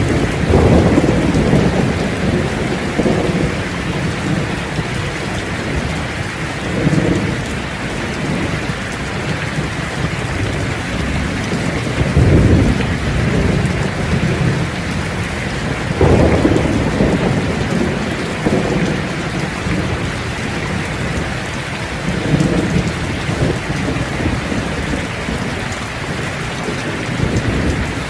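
Steady heavy rain hissing on surfaces, with low rumbles that swell and fade every few seconds.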